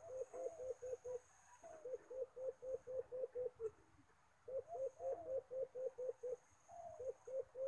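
A bird calling in runs of quick, evenly spaced low notes, about five a second. Each run of eight or so notes opens with a higher slurred note, and four runs follow one another with short gaps.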